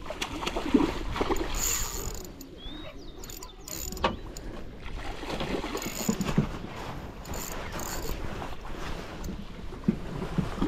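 Hooked salmon thrashing and splashing at the surface beside the boat, with short sharp splashes and knocks now and then, while the spinning reel's mechanism whirs and clicks as line is wound in.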